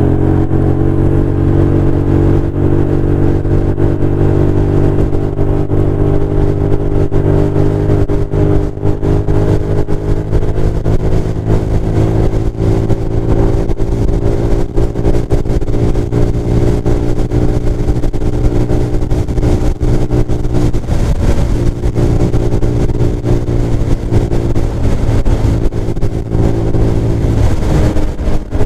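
Chinese GY6 150cc scooter's single-cylinder four-stroke engine running steadily at cruising speed, with wind rush on the microphone. The engine note shifts briefly about two-thirds of the way through, then steadies again.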